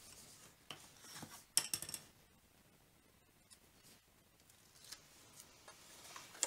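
Paper and Tear and Tape double-sided adhesive handled by hand: a few light taps and rustles, with a short crackling burst about a second and a half in, then faint ticks.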